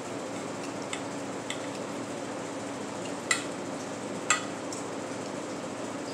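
Knife and fork clinking and scraping against a ceramic plate while cutting meat: a few light clicks, then two sharper clinks about three and four seconds in. A steady hum runs underneath.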